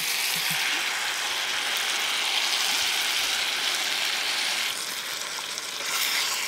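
Pheasant and sliced peppers sizzling in a hot cast-iron skillet as sweet and sour sauce is poured over them; the sizzle eases slightly about two-thirds of the way through.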